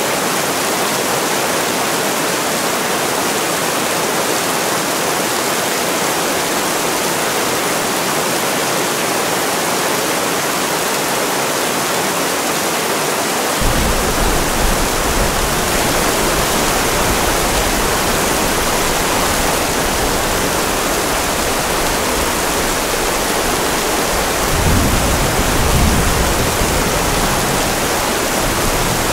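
Steady rain, a dense even hiss. About halfway through, a low thunder rumble comes in suddenly and goes on, swelling a few seconds before the end.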